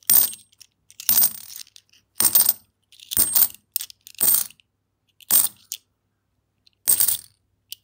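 Australian cupronickel 50-cent coins dropped one at a time onto a pile of coins, each landing with a sharp metallic clink. About seven clinks come roughly one a second, with a longer pause near the end.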